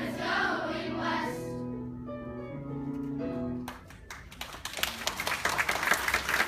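Music with held notes stepping in pitch, which stops abruptly about three and a half seconds in. An audience of students then starts clapping and cheering.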